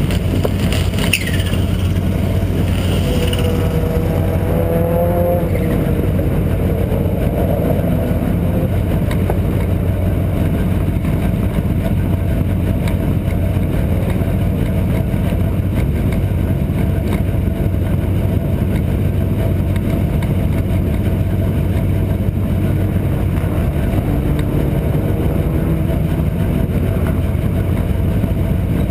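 Race car engines running while the cars stand stationary: a steady low idle throughout, with a few revs rising and falling in pitch in the first few seconds and again near the end.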